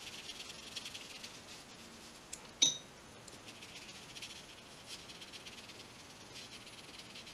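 Paintbrush stroking watercolour paint across paper in faint, rough brushing strokes. A single short clink about two and a half seconds in.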